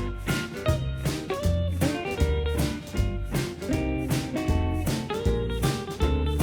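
Background music: plucked guitar over a steady beat and bass.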